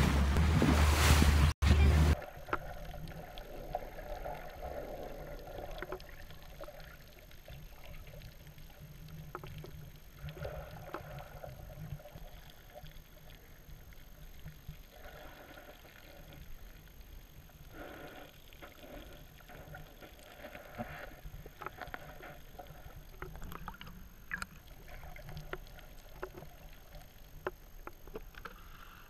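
Briefly, loud wind and boat noise rumbling on the microphone. Then, after a cut, quieter muffled water sloshing and gurgling heard by a camera dipped in and out of the sea, with irregular splashy surges.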